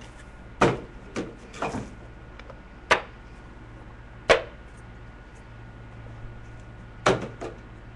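A trading-card box being opened and its cards handled: about six short, sharp snaps and swishes at irregular intervals.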